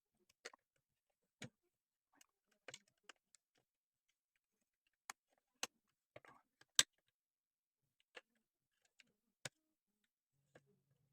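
Scattered sharp clicks and knocks at irregular intervals, like small hard parts or tools being handled and set down; the loudest comes a little under seven seconds in.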